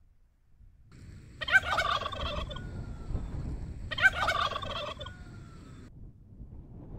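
Two loud fowl-like calls, matching warbling bursts about a second long and some two and a half seconds apart, over a low rumble.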